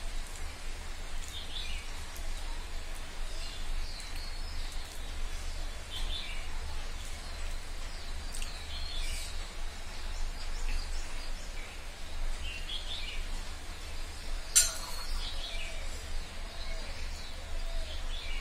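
Small birds chirping on and off over a steady low rumble, with one sharp click about fifteen seconds in.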